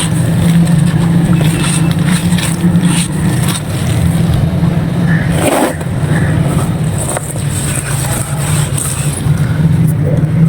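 Dry clay and claypot pieces being crumbled and crushed by hand, a crisp, grainy crunching and crackling with a stronger crunch about halfway through, over a steady low hum.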